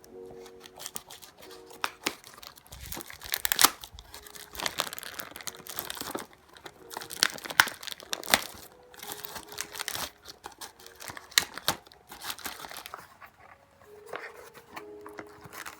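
Packaging being torn and crinkled open in irregular crackling bursts, over quiet background music.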